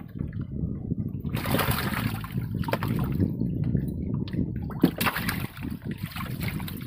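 Water splashing and sloshing around a small wooden boat, in several bursts of a second or so, over a steady low rumble.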